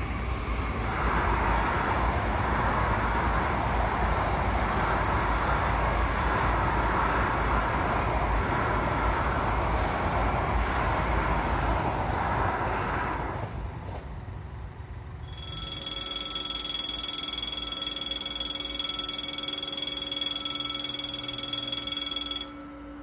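A train passing with a loud, even rumble that fades out after about 13 seconds. About 15 seconds in, a level-crossing warning bell starts ringing steadily and stops abruptly near the end.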